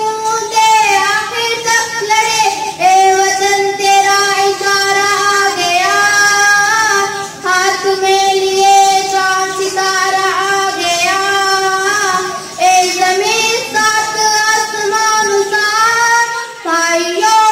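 A boy singing an Urdu patriotic song solo, in a high voice, drawing out long held notes that glide and turn, with brief breaths between phrases.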